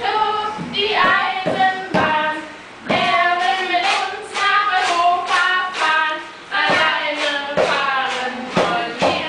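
A group of voices, children's among them, singing a song together, with two short breaks between phrases.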